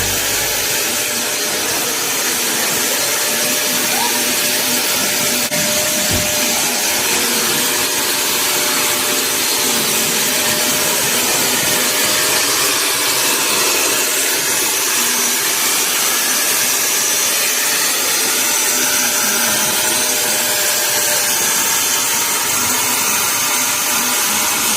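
A power tool running steadily without a break, a loud high hissing whir.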